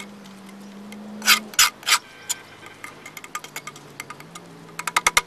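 A fork scraping and clicking against a skillet while stirring scrambled eggs: three louder scrapes about a second in, then lighter taps, and a quick run of clicks near the end.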